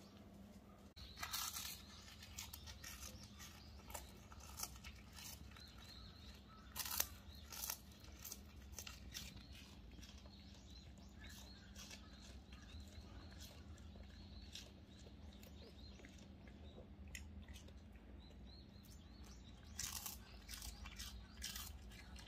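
A Shih Tzu crunching and chewing a capelin (shishamo) fish: irregular crisp crunches, with louder clusters about a second in, around seven seconds in and near the end.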